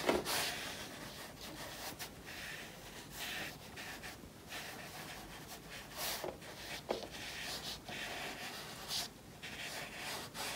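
A 3/4 inch flat watercolour brush stroking across textured watercolour paper: a soft, uneven scratchy rubbing that comes and goes with each stroke, with a few short sharp ticks.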